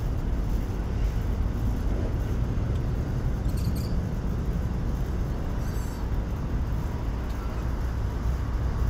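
Steady low rumble of a Boeing 767-300 freighter's twin jet engines at takeoff power as the aircraft climbs away, with faint high chirps twice midway.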